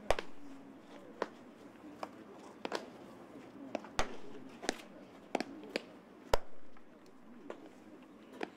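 Pitched baseballs smacking into catchers' leather mitts in a busy bullpen: about ten sharp pops at irregular intervals from several pitchers throwing at once, the loudest about six seconds in.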